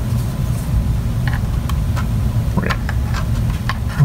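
A steady low hum, with a few faint clicks and taps as the plastic floppy-drive enclosure is handled.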